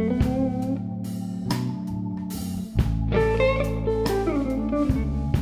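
Live blues band playing an instrumental passage: an electric guitar solo with bent notes through a Divided By 13 RPB 19/37 amp, over bass guitar, drums with cymbal hits, and keyboard.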